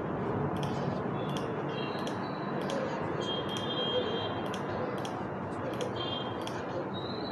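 Steady background hiss with faint, intermittent high-pitched tones; no speech.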